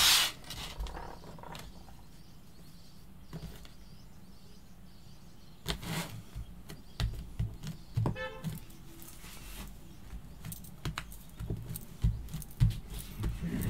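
Card stock being laid down and pressed by hand onto a card base on a wooden desk: scattered taps, rubs and paper rustles, with a quiet stretch for several seconds after the first knock and a brief squeak a little past the middle.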